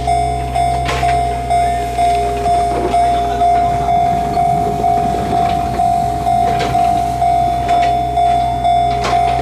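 Japanese level-crossing warning bell ringing steadily: one ringing tone struck over and over, about three strikes every two seconds, each strike fading before the next.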